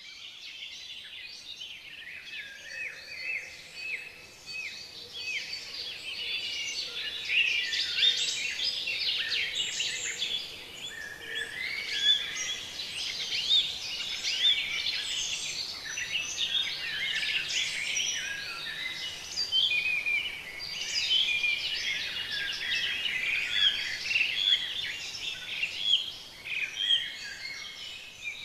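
A chorus of many songbirds singing at once, overlapping high chirps and trills that run on without a break.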